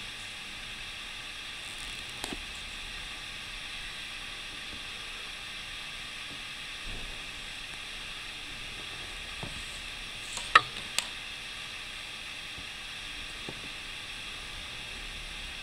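Steady hiss of recording noise, with a few light clicks and taps as a padded bra is handled and turned over on a table. The sharpest are two clicks close together about ten and a half seconds in.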